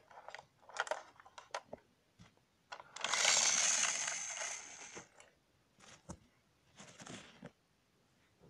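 Handling noise of plastic toys: scattered light clicks and rustles, with a two-second burst of hissing, scraping noise about three seconds in that fades away.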